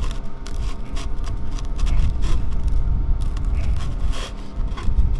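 A table knife cutting through a cooked duck breast on a paper plate, with repeated scrapes and clicks of the blade and metal tongs against the plate, over a steady low rumble.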